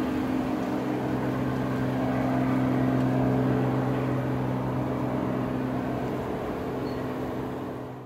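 Helicopter in flight, moving away: a steady drone of rotor and engine with a low hum, gradually easing off over the last few seconds as it recedes.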